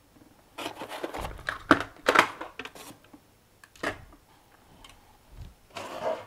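Handling noise from unpacking: a cardboard box and foam packaging rustling, with parts knocked down onto a tabletop. Clicks and short rustles come in a cluster over the first three seconds, a single sharp knock about four seconds in, and another short rustle near the end.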